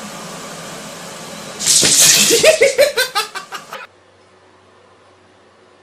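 A person laughing loudly in a quick run of ha-ha pulses for about two seconds, starting about a second and a half in over a steady background hiss. It cuts off suddenly to a quiet low hum.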